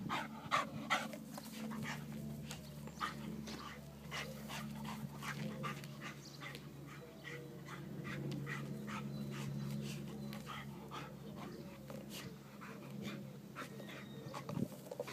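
Bull terrier chewing and mouthing a toy garden gnome: irregular short clicks and crunches of teeth on the toy, several a second, over a low steady hum.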